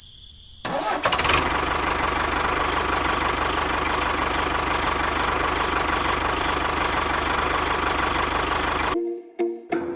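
An engine running steadily with a fast knocking texture. It starts abruptly just under a second in and cuts off suddenly about a second before the end, followed by a few short pulsing tones.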